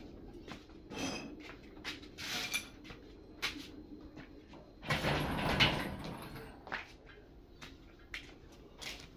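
Scattered metal knocks and clicks with a louder scraping rattle about five seconds in: hands and tools working heavy metal parts in a workshop.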